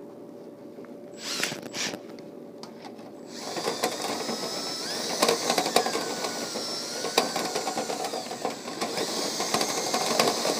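Drill spinning a rotary dryer-vent cleaning brush on extension rods inside the vent duct, starting up about three seconds in. A wavering whine with rattling and scraping follows as the brush is screwed clockwise through an elbow of the clogged vent.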